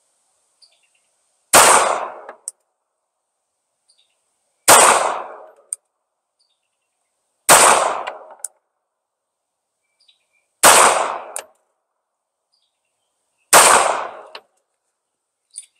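Glock 42 subcompact pistol firing .380 ACP, five single shots at a slow, even pace about three seconds apart, each with a short echo tail. A small tick follows just under a second after each shot.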